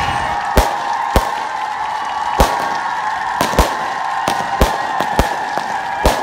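Aerial fireworks bursting overhead: about a dozen sharp bangs at uneven intervals over a steady background din.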